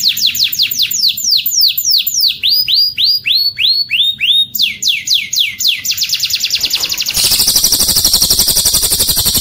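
Recorded cililin and canary song: a rapid series of high whistled notes, each sweeping downward, slowing to about two or three a second in the middle and quickening again. About seven seconds in, a louder, fast, dry trill takes over.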